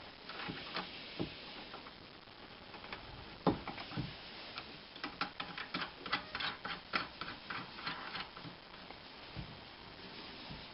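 Light clicks and taps of small metal parts being handled and fitted during hand assembly of a lathe part, with one louder knock about three and a half seconds in and a quick run of clicks in the second half.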